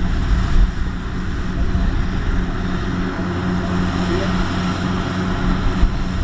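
Kubota DC-70X rice combine harvester's diesel engine running steadily at a constant pitch, with machinery noise over it.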